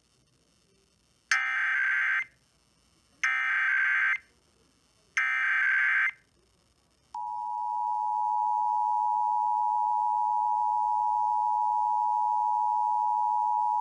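Emergency Alert System broadcast tones. Three one-second bursts of the digital SAME header, about a second apart, carry the coded alert. About seven seconds in, the steady two-tone EAS attention signal begins, warning that an alert message is about to follow.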